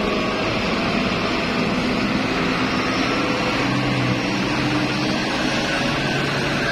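Diesel engine of a large tank truck running steadily as it drives slowly past close by, with more trucks moving in a queue behind it.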